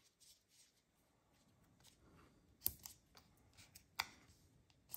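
Mostly near silence, broken by faint handling of small cardstock pieces and a few sharp clicks and taps, two in the second half and one near the end.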